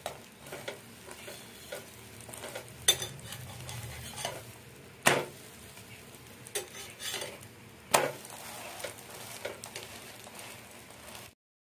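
Egg and paratha frying on a flat tawa with a faint sizzle, while a metal spatula scrapes and taps the pan, giving a few sharp clacks, the loudest about five and eight seconds in.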